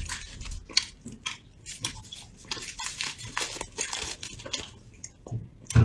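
Close-up chewing of a sticky soft candy: irregular wet mouth clicks and smacks.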